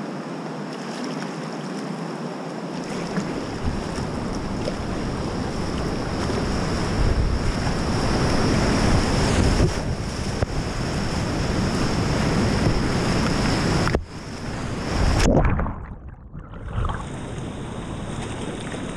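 Whitewater rushing and splashing around a kayak as it runs a river rapid, heard on a GoPro's microphone with wind noise. The rush builds and is loudest mid-way through the drop, then about three-quarters of the way through the sound cuts out abruptly and goes briefly muffled before the steady rushing returns.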